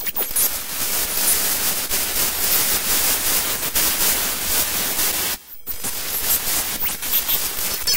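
Industrial noise music: a dense wall of harsh, static-like noise with no clear beat or melody, which cuts out suddenly for a moment about five and a half seconds in and then starts again.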